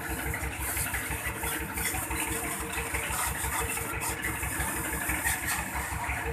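Engine idling with a steady, rapid low throb.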